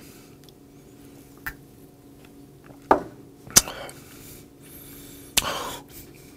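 Eating-and-drinking sounds at a table after a shot of soju: a sharp knock about three seconds in as a shot glass is set down, then short breathy exhales.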